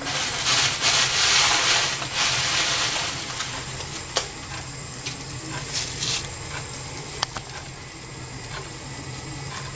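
A large stainless-steel pot of chicken noodle soup at a rolling boil, giving a bubbling, hissing sound that is loudest in the first few seconds and then settles, with a few light clicks.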